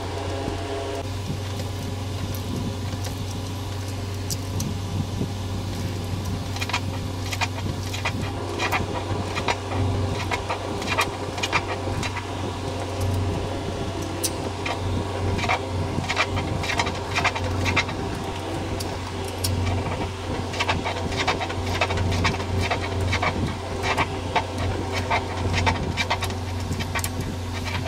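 Scattered metallic clicks and ticks of a hand wrench working a mounting bolt into the generator block's threaded bracket, in irregular clusters from about six seconds in, over a steady low hum.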